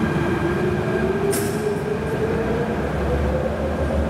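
MTR K-train electric multiple unit running, its traction motors giving a whine that rises steadily in pitch as the train picks up speed, over the rumble of the running gear. A short hiss comes about a second in.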